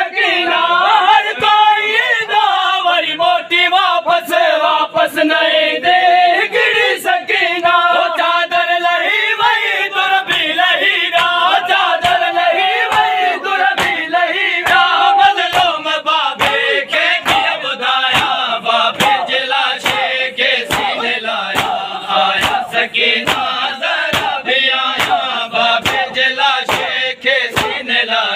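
A crowd of men chanting a Sindhi noha in unison, with rhythmic slaps of matam (open hands striking chests) keeping a regular beat under the singing.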